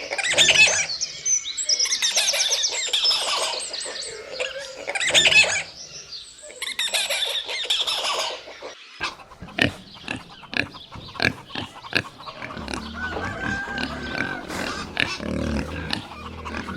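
Loud, high-pitched animal calls in several bouts, followed about nine seconds in by a run of short clicks and knocks over a low rumble.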